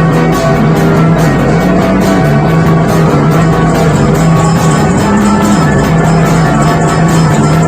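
Loud live band playing a krautrock-style psychedelic jam: a repeating low riff that steps up and down over a steady drum beat, with dense distorted layers above.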